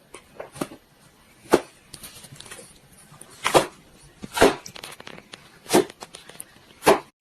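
Dog barking: about five short, sharp barks at uneven intervals.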